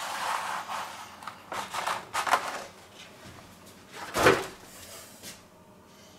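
Kitchen handling noises on a stone worktop. A baking mat rustles as it is pulled away, a wire cooling rack clatters as it is set down, and a single sharper knock comes about four seconds in.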